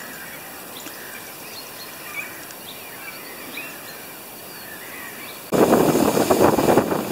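Quiet shoreline ambience with faint, scattered bird chirps; about five and a half seconds in it cuts abruptly to loud, gusty wind noise buffeting the microphone.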